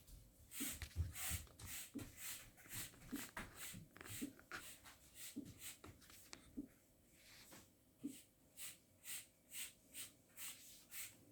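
Quiet, evenly paced footsteps, about two a second, with a few soft thuds.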